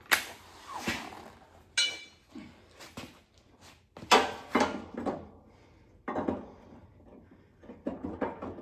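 Irregular metal clanks and clinks as a new zero-turn mower blade and hand tools are handled and fitted to the deck spindle. A couple of the strikes, about two seconds in, ring briefly.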